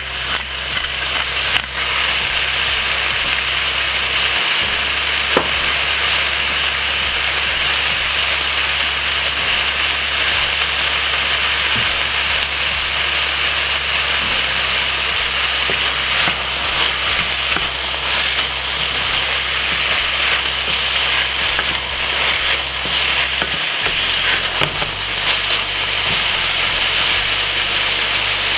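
Sliced mixed peppers and onion sizzling steadily as they fry in oil in a stainless steel saucepan, with a few knocks and scrapes of a wooden spoon stirring them in the first couple of seconds.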